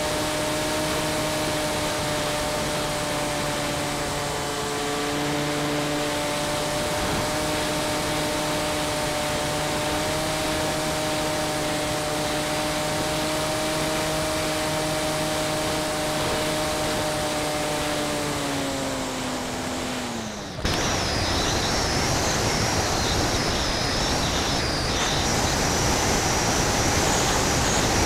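Model airplane's motor and propeller heard from on board, running at a steady pitch, then winding down about 18 seconds in and cutting off about 20 seconds in. After that a louder rush of air over the gliding plane takes over, with a faint wavering high whine.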